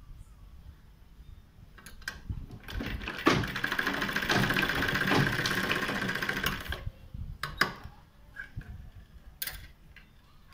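Domestic sewing machine stitching a seam: a steady mechanical run of about four seconds starting nearly three seconds in. Quieter handling sounds come before it and a few sharp clicks after it.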